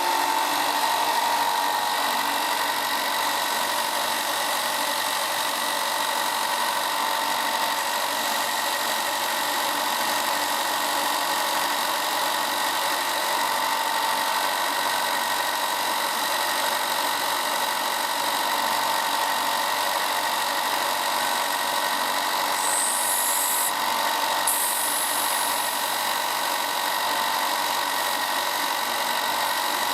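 Ryobi 4 x 36 in. belt and 6 in. disc sander running steadily with a constant whine, its spinning disc sanding the edge of a wooden circle round. A brief higher hiss rises over it a little past two-thirds of the way through.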